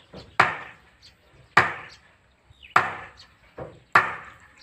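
A hammer pounding a wooden block set on top of a blue PVC well pipe, driving the pipe down into the borehole in manual drilling. Four sharp wooden knocks about a second and a quarter apart, each dying away quickly.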